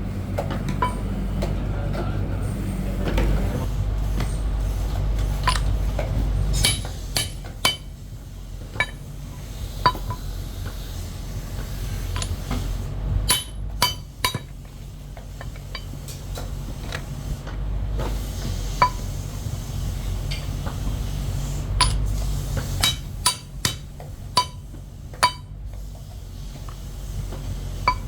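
Sharp metallic clinks and taps of steel parts being handled, coming singly and in small clusters at irregular intervals, over a steady low workshop machine hum. The hum drops noticeably about a quarter of the way in.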